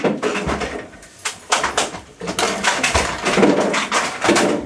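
A man's loud wordless vocal noises, cries and grunts, broken by many sharp clicks and knocks.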